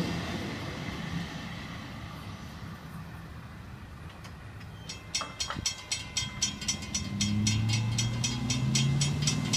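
The rumble of a passing intermodal freight train fades as its last cars move off. About halfway through, a grade-crossing bell starts ringing at about three strikes a second while the gates rise, signalling that the crossing is clearing. Car engines come in low near the end.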